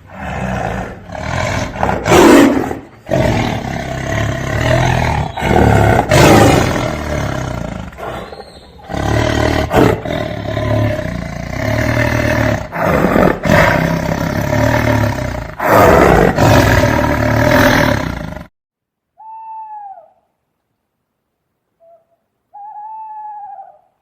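Big cat roaring and growling, a string of loud roars one after another, stopping suddenly about 18 seconds in. Two short calls follow, each rising and falling in pitch.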